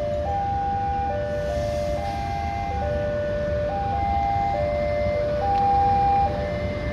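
Level-crossing warning alarm sounding a repeating pattern of stepped electronic tones, cycling about every two seconds, over the low rumble of a diesel locomotive moving slowly onto the crossing.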